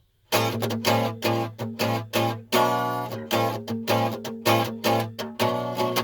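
Guitar strummed in a steady rhythm as a song's instrumental intro. It starts about a third of a second in.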